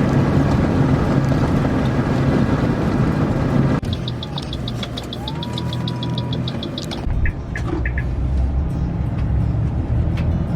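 Bus engine and road noise inside the cabin of a moving coach, a steady low hum. About four seconds in the sound changes abruptly, and a fast, even run of light high ticks plays for about three seconds, followed by a few short beeps.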